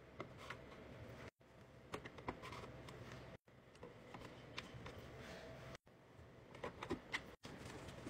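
Faint light taps and clicks of plastic bottles being set down and slid into a fridge door shelf, over a low steady hum. The sound cuts out briefly four times.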